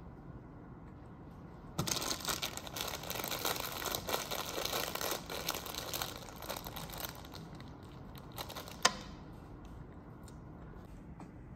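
Crinkling and rustling for about five seconds, then a single sharp click.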